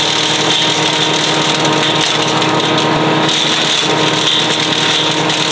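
Small single-cylinder gasoline engine of a trailer-mounted wood chipper running steadily at constant speed while material is pushed down the chute.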